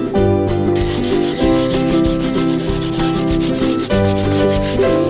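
Quick, even scrubbing strokes on a rusty steel framing square in a vinegar rust-removal bath, stopping a little before the end, over background acoustic guitar music.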